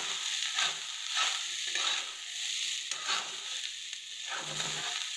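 Leftover rice frying in a kadhai with a steady sizzle, while a metal spatula stirs and scrapes it against the pan about twice a second, with a short lull in the middle.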